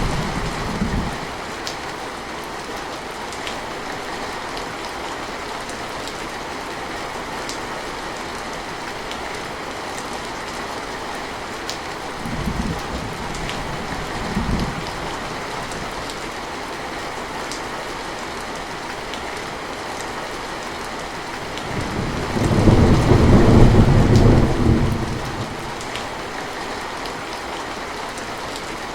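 Steady rain falling, with scattered sharp drips, and thunder. Two short low rumbles come about halfway through, and a longer, louder thunder roll follows a few seconds past the three-quarter mark.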